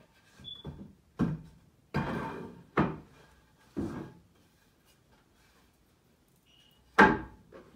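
Wooden boards of a stand being assembled, knocking and thunking as they are handled and set down. There are several knocks in the first four seconds, one dragging briefly about two seconds in, then the loudest thunk about seven seconds in.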